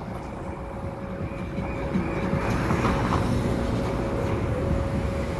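City traffic: cars driving past close by, engine and tyre noise growing louder about two seconds in, with a steady high hum running underneath.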